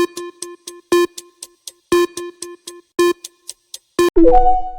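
Countdown timer sound effect: a pitched tick once a second with fainter ticks between, ending about four seconds in with a short rising three-note chime.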